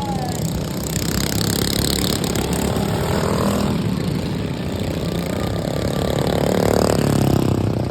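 Modified racing lawnmower engines running hard on a dirt track, one growing louder near the end.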